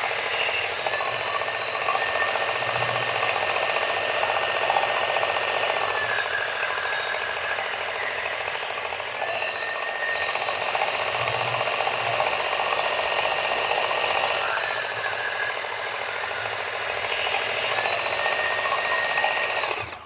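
Work Sharp belt knife sharpener running with a steady whine while a steel knife blade is drawn across its X22 medium abrasive belt, raising a burr. There are louder passes of high, hissing grinding, two of them lasting a few seconds each, and the sound cuts off suddenly at the end.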